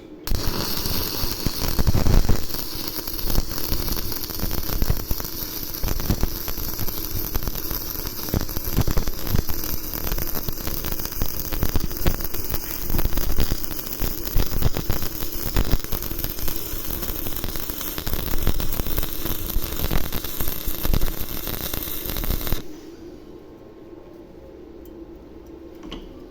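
Electric arc welding: the arc crackles and sizzles steadily for over twenty seconds, then cuts off suddenly near the end, leaving a faint steady hum.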